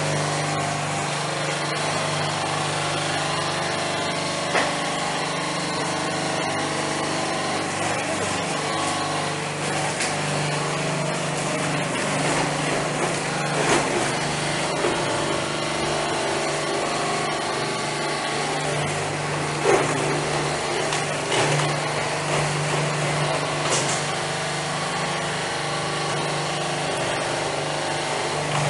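Electric coconut-husk peeling machine running steadily with a low hum, its rollers tearing husk off the coconuts being fed in, with occasional sharp cracks as the fibre is ripped away.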